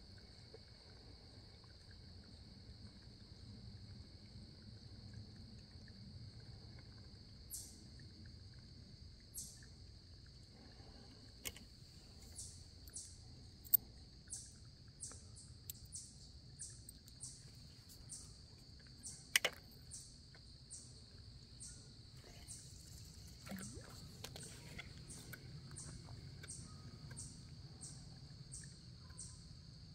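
Faint creekside insect chorus: a steady high-pitched insect buzz, joined about twelve seconds in by a high chirp repeating nearly twice a second. A few sharp clicks stand out, the loudest near the middle.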